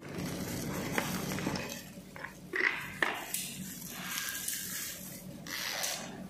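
Bubble wrap and a small cardboard box rustling and crinkling as a packed part is lifted out and handled, with a couple of sharp clicks about one and three seconds in.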